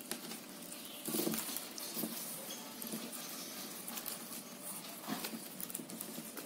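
Plastic craft wire rustling and clicking as hands pull strands through and push them into a tube to knot them, with a louder rub about a second in.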